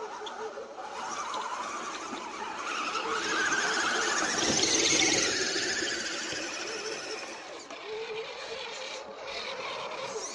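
Electric motor and gearbox of a radio-controlled scale crawler truck whining as it drives over dirt and through mud. The whine wavers in pitch, climbs and grows louder over the first few seconds, and eases off after about the middle.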